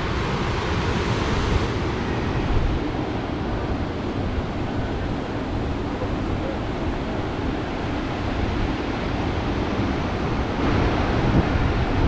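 Atlantic surf breaking and washing over a rocky black-sand shore, with wind buffeting the microphone as a low rumble. The hiss of the wash swells near the start and again near the end.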